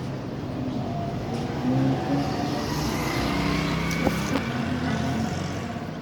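A motor vehicle's engine passing by, its noise swelling towards the middle and fading near the end.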